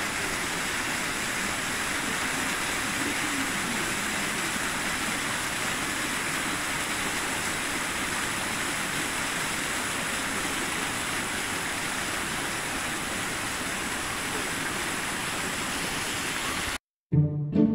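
Steady rushing of flowing water, even and unbroken, cutting off abruptly near the end, where plucked string music starts.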